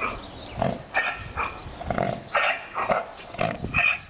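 A horse coughing over and over, a run of short, rough, irregular coughs about two a second.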